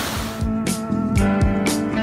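Rushing stream water for about the first half second, then background music with a drum beat cuts in and takes over.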